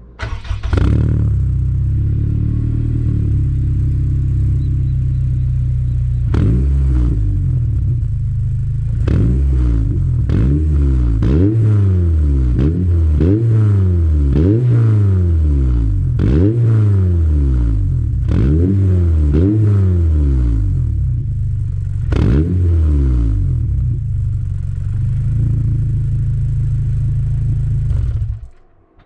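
Honda Integra DC5's K20A 2.0-litre four-cylinder running through a half-titanium muffler with the inner silencer removed, very loud. It idles steadily, then is blipped about a dozen times, roughly once a second, each rev rising quickly and falling back. It settles back to idle, and the sound cuts off suddenly near the end.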